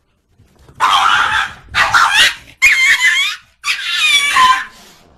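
A dog giving four loud, wavering whine-howls one after another, about a second in. Each lasts roughly half a second to a second, and its pitch slides up and down.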